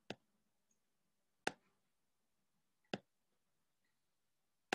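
Computer mouse-button clicks: four single sharp clicks, about one and a half seconds apart, with near silence between them.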